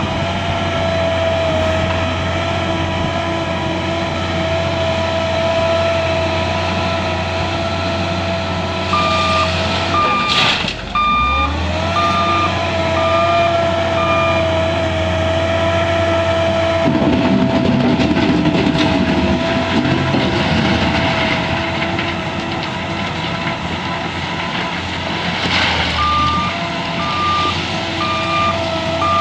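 Wheel loader's diesel engine running under work with a steady whine, its reversing alarm beeping in two spells, about ten seconds in and again near the end. The engine note drops and climbs back about ten seconds in, and midway a spell of rough rattling noise comes over it.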